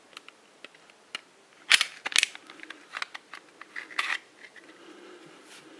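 Glock 27 pistol being field-stripped by hand: a series of sharp metallic clicks and clacks as the slide lock is pulled down and the slide is worked forward off the frame, the loudest pair about two seconds in.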